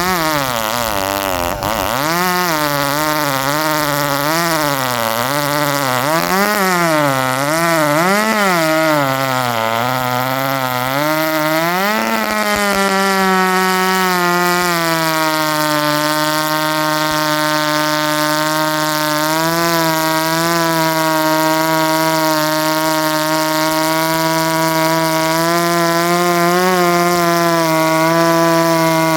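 A ported Shindaiwa 390sx two-stroke chainsaw running at high revs. For the first ten seconds or so its pitch keeps rising and falling as the chain loads and unloads in the wood. From about twelve seconds on the pitch holds nearly steady.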